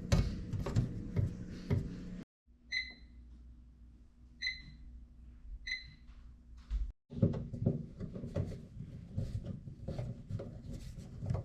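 Three short, identical electronic beeps from a microwave's keypad, spaced a second or so apart. They fall between bouts of clicking and knocking from parts being handled during the light bulb replacement.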